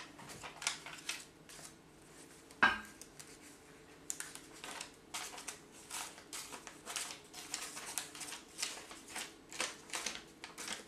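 Paint-loaded freezer paper dabbed and pressed again and again against paper on an easel: soft papery taps and rustles about two a second, with one louder knock about three seconds in.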